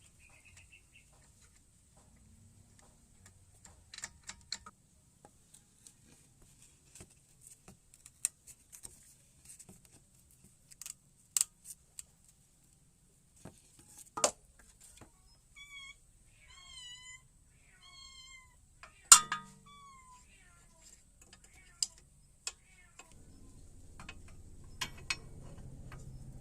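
Scattered clinks and knocks of hand tools and parts on metal during suspension work, the sharpest one about 19 s in. About 16 s in comes a run of three or four short, wavering high-pitched calls, and near the end a low steady hum starts.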